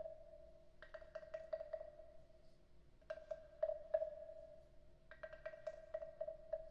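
Wooden frog percussion instrument played with a stick: three quick runs of sharp wooden clicks, each with a hollow ringing tone from the frog's body.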